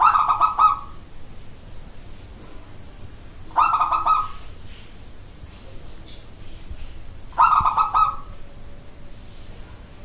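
Zebra dove (local perkutut) cooing its song: three short phrases, each a quick run of soft notes, about every three and a half seconds.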